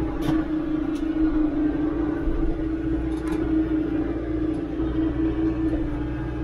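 Compact diesel tractor engine running steadily under way, heard from inside the cab, with a few light knocks.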